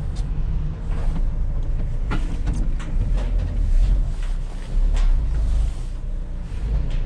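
Van being driven, heard from inside the cab: a steady low engine and road rumble, with a few brief knocks and rattles.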